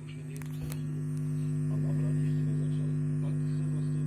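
Crystal radio with a galena detector giving out a steady mains hum that swells over the first two seconds and then holds, with a faint broadcast voice underneath. A few sharp clicks sound in the first second.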